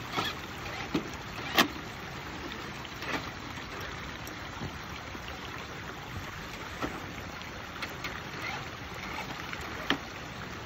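Traxxas TRX-6 six-wheel RC crawler wading through a shallow rocky stream: steady running and splashing water, with a few sharp clicks or knocks, the loudest about a second and a half in.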